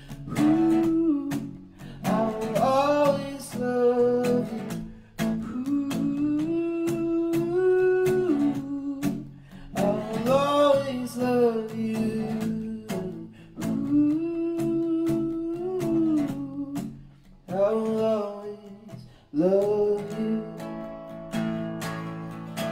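A man sings over a strummed acoustic guitar, holding long sung notes. Near the end the voice drops out and the guitar strumming carries on alone.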